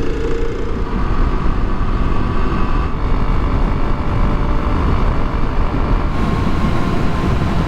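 Kawasaki KLX 300 single-cylinder motorcycle riding at a steady speed, its engine running under a loud, steady rush of wind and road noise.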